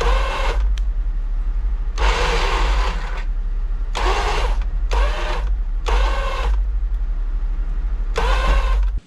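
An electric winch motor whining in about six short pulses, each under a second, over the steady low rumble of a Jeep Rubicon's engine running.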